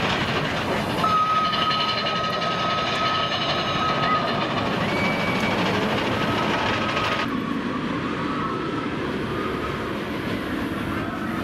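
Big Thunder Mountain Railroad mine-train roller coaster rumbling and clattering along its track as it passes. A steady high whine sounds for about three seconds near the start, and the sound turns duller about seven seconds in.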